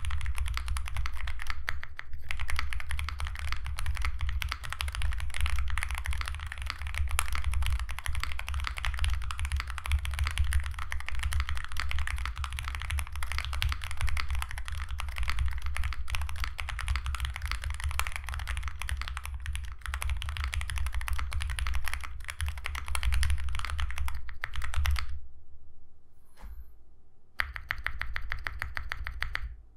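Continuous fast typing on an Owlab Mr. Suit mechanical keyboard fitted with lubed Lavender switches, a POM plate, foam and GMK keycaps: a dense run of marbly keystrokes that stops about 25 seconds in.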